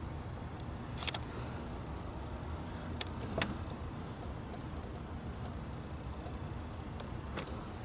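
A motor vehicle engine runs with a steady low hum, with a few sharp clicks and rattles scattered through it.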